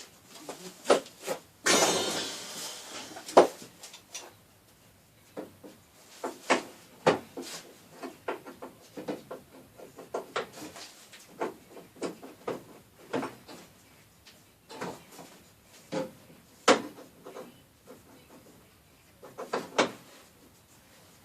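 Irregular clicks and knocks of hand tools working on the front bumper bolts of a Mk2 VW Golf, with a short scraping rush about two seconds in.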